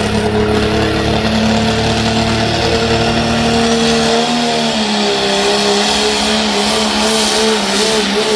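Limited Pro Stock diesel pickup truck's engine running hard at full power under load while pulling the sled. The engine note is steady and sags slightly about four seconds in, with a high hiss growing stronger toward the end.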